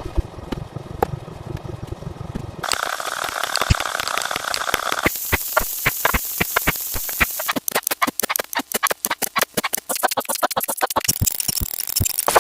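A string of unrelated sound effects spliced one after another, each cutting off abruptly after two or three seconds. In the middle is a fast run of sharp clicks.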